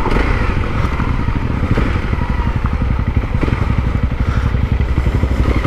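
Honda CRF250L's single-cylinder engine running at low revs, a steady fast pulsing, as the dirt bike slows and comes to a stop on a gravel road.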